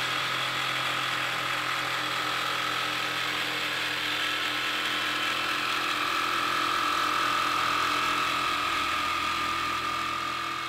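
Jigsaw cutting a wooden flooring plank, its motor running steadily and getting a little louder past the middle of the cut.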